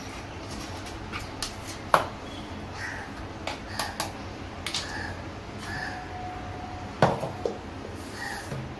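A knife scraping and tapping ground masala paste out of a mixer-grinder jar into a steel bowl, with scattered light scrapes and clicks and sharp knocks of the jar and blade, the loudest about two and seven seconds in. Near the end the jar is set back onto the mixer base.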